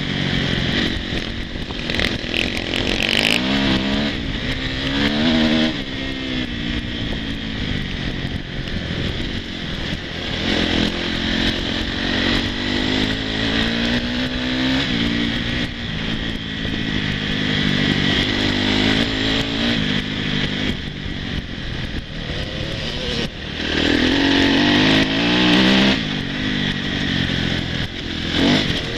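Dirt bike engine heard up close from the bike itself, its revs rising and falling again and again as the rider works the throttle along a dirt track.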